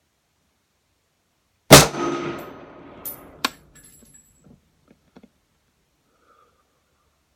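A single rifle shot from an S&W M&P 10 semi-automatic rifle firing Winchester 180-grain Power Point ammunition, about two seconds in, with an echo that dies away over about a second and a half. Two ringing metallic clinks follow a second or so later, then a few faint ticks.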